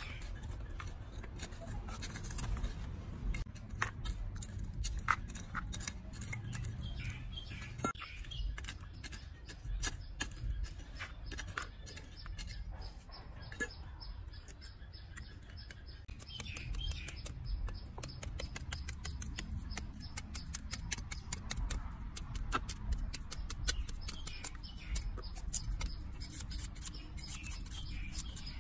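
Short clicks and scrapes of hand work in a plastic basin of potting soil, with a knife paring peel off a sweet potato toward the end. Birds chirp now and then in the background.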